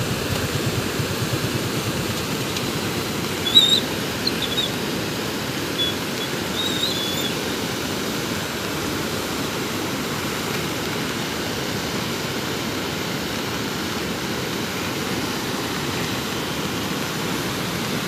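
Steady rushing of the Alaknanda River in flood, a fast, muddy torrent running at its alarm level. A few brief high chirps cut through it a few seconds in.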